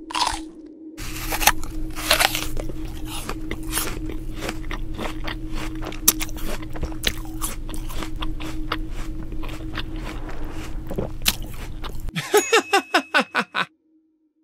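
Electronic sound-design soundtrack: dense crackling and sharp clicks over a steady hum and low rumble, ending in a quick run of pulsing sweeps that cuts off suddenly.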